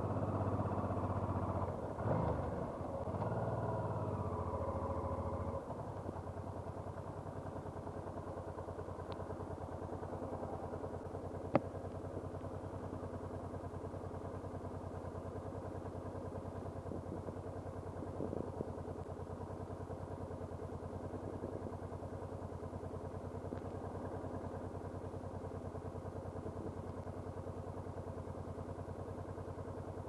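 Honda NT700V Deauville's V-twin engine, louder and shifting in pitch for the first five seconds or so, then settling to a steady idle. A single sharp click about twelve seconds in.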